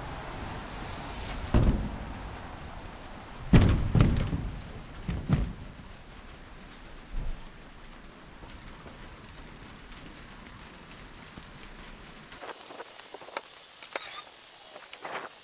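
Work sounds from stacking split firewood, sped up twenty times: a dense crackling hiss with several heavy knocks, the loudest three and a half to four seconds in. Near the end it cuts to a quieter stretch with scattered sharp ticks.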